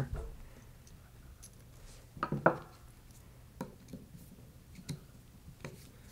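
Small metal parts clicking as a metal motor mount plate and screws are fitted onto a planetary gear motor and a Phillips screwdriver is set to work on them. A pair of louder clicks comes a little over two seconds in, followed by a few light ticks.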